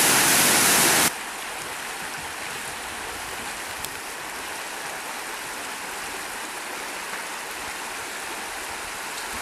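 Loud, steady rush of a waterfall that cuts off abruptly about a second in, giving way to the quieter, even rush of a flowing stream.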